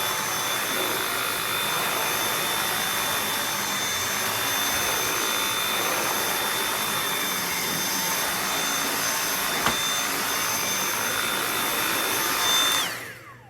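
Dyson V8 cordless stick vacuum's motor running with a steady high whine over a rush of airflow, with a single click about two-thirds of the way in. Near the end it is switched off and the whine falls in pitch as the motor spins down.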